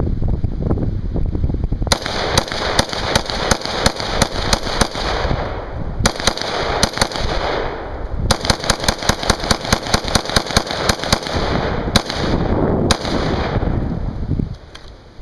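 AR-15 rifle with an Addax Tactical midlength gas-piston upper and 16-inch barrel, fired in rapid strings of shots, several a second. It starts about two seconds in, with short breaks between strings, and stops shortly before the end. The rifle is cycling a mix of steel-case ammunition without a stoppage.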